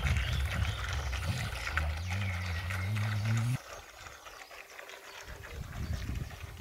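Radio-controlled bait boat's electric drive motors running, a low hum that rises slightly in pitch and then cuts off suddenly about three and a half seconds in.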